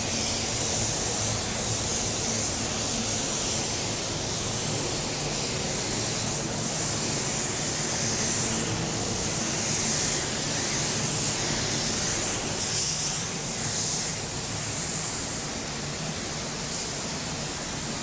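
DeVilbiss DV1 automotive spray gun hissing as compressed air atomizes clear base blending additive onto a car panel. The hiss swells and eases with the trigger pulls and passes.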